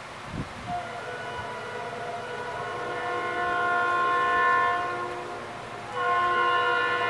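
Multi-note air horn of an approaching train: one long blast that swells and then fades, and a second blast starting sharply about six seconds in.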